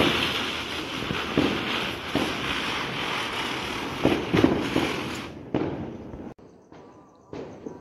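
Ground firework hissing and crackling as it sprays sparks, with sharper cracks every second or so. It dies out about five seconds in, leaving a few separate pops.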